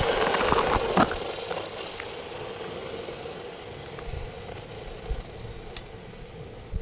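Brushed electric motor and drivetrain of a 2WD 1/10-scale RC car whining at full throttle on a speed run. It is loudest in the first second, with a sharp clack about a second in, then fades as the car runs off.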